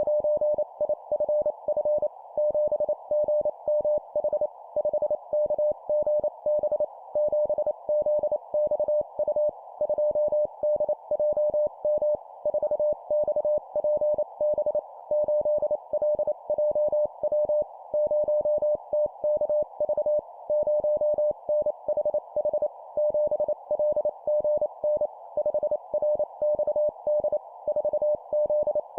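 Morse code (CW) practice at 25 words per minute: a single steady mid-pitched tone keyed in quick dots and dashes. It is sent in four-character groups, a number followed by three letters, with short pauses between groups.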